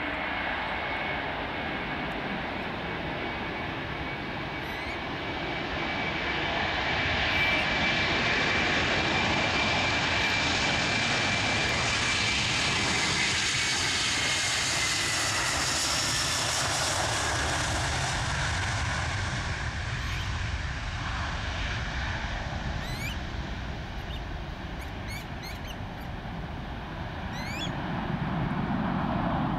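Delta Air Lines Airbus A330-200 taking off: twin jet engines at takeoff power, a loud steady roar with a high whine. The roar swells as the jet rolls past and the whine drops slightly in pitch as it goes by, with a low rumble near the end as it climbs away.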